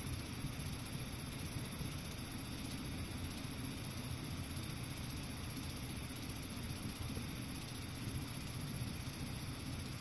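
Air conditioner running: a steady low rumble with a faint high hiss over it.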